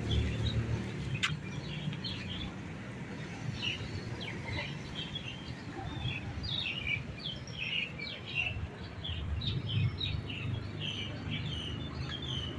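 Small birds chirping: many short, high chirps in quick succession, growing thicker about halfway through, over a steady low rumble.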